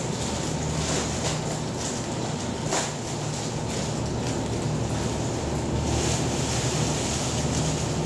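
Crushed malt being poured from a bag into the mash water of an electric all-in-one brewing system, a steady rushing hiss that swells and eases as the grain flows, over a low steady hum. A brief knock about three seconds in.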